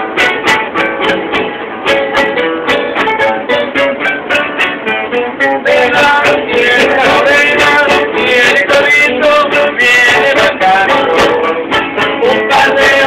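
Mariachi band playing a lively Spanish-language song on strummed acoustic guitars, a fast, even strumming rhythm throughout. A wavering sung melody rides over the guitars from about six seconds in.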